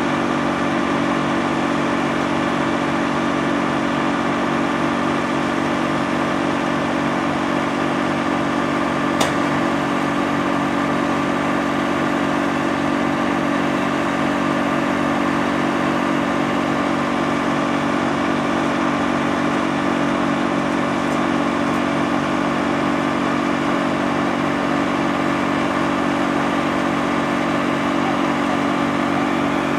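Wood chipper running steadily with its engine note unchanged, with a single sharp click about nine seconds in.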